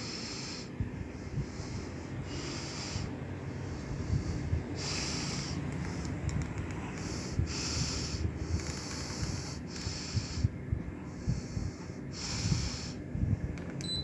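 Sharp split air conditioner's indoor blower running, its airflow buffeting the microphone as a rough, gusty rumble. Just before the end, a short high beep from the unit acknowledges a remote-control command.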